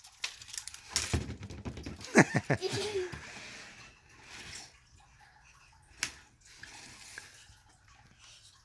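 Plastic packaging of a giant toy mystery egg rustling and crinkling as it is handled and opened, with a short vocal sound about two seconds in and a single click about six seconds in.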